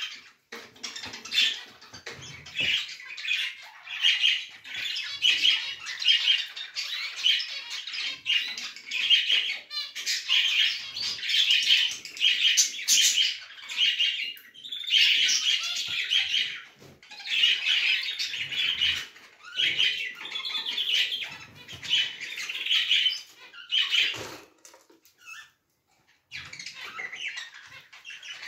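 Domestic canary singing, long high-pitched runs of rapid trills and rolls, with a break of a second or two about 25 seconds in before it starts again.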